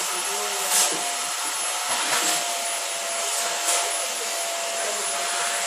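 Vacuum cleaner running steadily with a thin whine while its hose brush is drawn over a cat's fur. A few brief louder rushes of air come through as the nozzle is stroked along.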